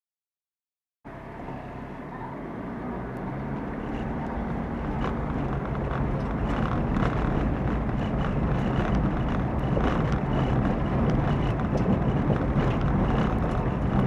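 Car driving on a forest road, heard from inside by the dashcam: engine and tyre rumble with scattered small knocks and clicks. It cuts in about a second in and grows louder over the next several seconds as the car picks up speed, then holds steady.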